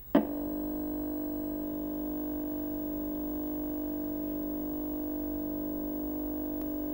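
A short hit, then a steady drone of several low tones held without change: a synthesized title-card sound effect.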